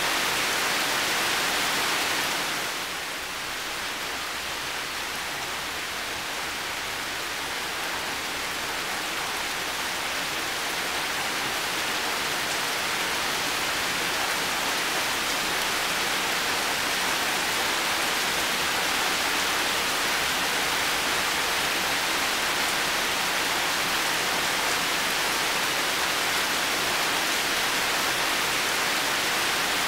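Heavy rain falling steadily as a dense, even hiss. About two and a half seconds in it eases slightly and softens, then builds back up gradually over the next several seconds.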